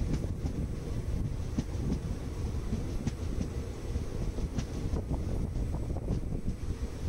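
Moving passenger train heard from an open window: steady rumble of wheels on the rails with scattered clacks, and wind on the microphone.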